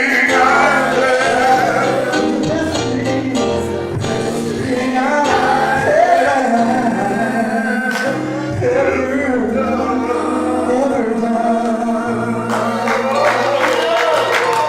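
Gospel music with singing and a steady bass line.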